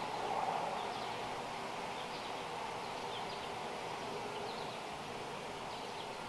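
A honey bee colony humming steadily, with short high bird chirps now and then.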